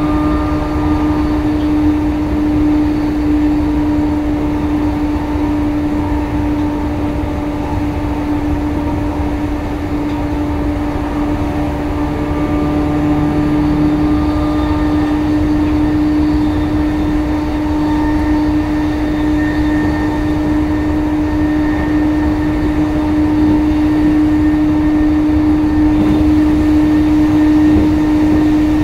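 Joban Line Rapid commuter train running at steady speed, heard inside the passenger car: wheel-on-rail rumble with a constant steady hum, growing a little louder near the end.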